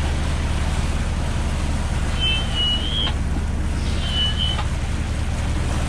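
Sailboat's engine running steadily while motoring, a low even drone with a fine regular pulse, over wind and water noise. Two short high-pitched tones sound about two and four seconds in.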